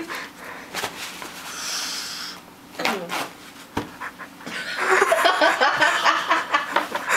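A woman panting and gasping with her mouth open against the burn of very spicy food. The breathing grows fast and heavy about five seconds in.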